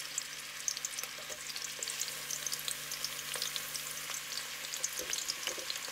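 Sliced onion rings sizzling in hot oil, a steady hiss with many small crackling pops.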